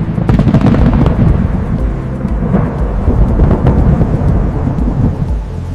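Thunder rumbling and crackling, laid over electronic background music with a pulsing bass.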